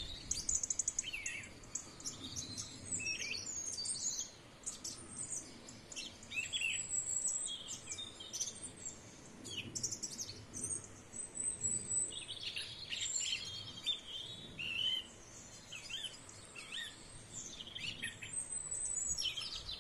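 Dawn chorus: several songbirds singing and calling over one another, with short chirps, thin high whistles and quick trills, over a faint low background hum.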